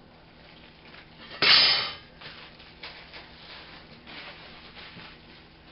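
Protective plastic film being peeled and crinkled off a metal steamer insert: one loud rasping rip about a second and a half in, then quieter rustling and a few light clicks.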